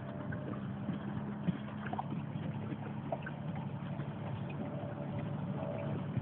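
Outboard motor of an inflatable coaching boat running steadily, a low even hum, with water and wind noise underneath.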